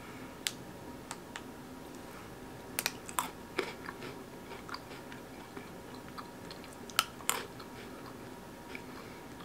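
Biting and chewing crunchy green tea Pocky biscuit sticks, with scattered sharp crunches, clustered about three seconds in and again about seven seconds in.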